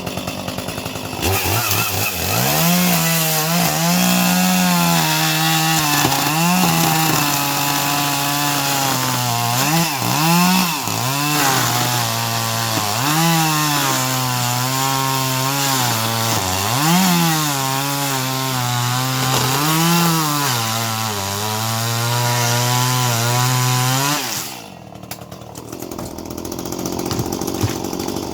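Chainsaw running at high speed. Its pitch sags and recovers over and over, as when the chain is loaded in wood, until it drops off about 24 seconds in.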